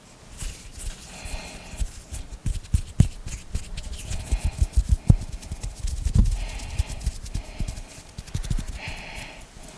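Close-miked hand and finger sounds: hands rubbing in regular strokes about once a second, with a dense run of sharp finger taps, clicks and soft thumps through the middle.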